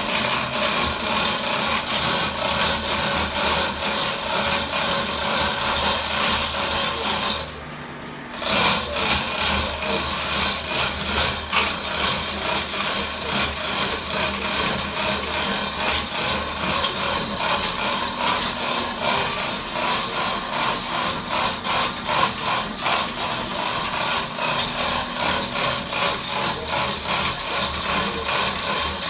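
Manual chain hoist worked by hand, its chain rattling and clicking rapidly through the block as it lowers an engine. The rattling stops for about a second, roughly seven and a half seconds in, then carries on.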